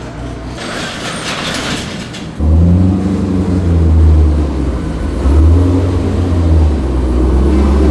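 Car engine running steadily with a deep, low tone that comes in abruptly about two and a half seconds in, after a quieter stretch of rushing noise.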